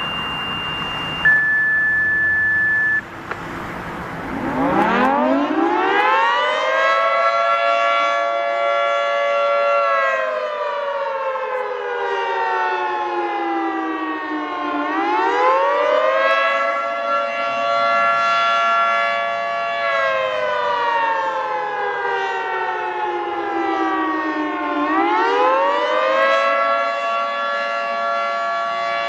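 Two steady radio tones, a high one then a lower one, come first. About four seconds in, a Federal Signal 2T22 dual-tone electromechanical warning siren winds up, holds its chord, slowly slides down in pitch, and winds up again, rising and falling about every ten seconds.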